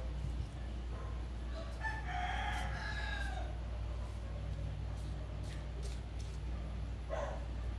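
One drawn-out, wavering animal call, a little under two seconds long, beginning about two seconds in, with a shorter call near the end, over a steady low hum.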